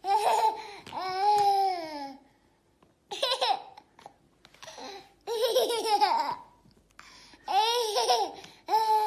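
A toddler laughing and babbling in about five short bursts with pauses between them, the pitch sliding down within several of them.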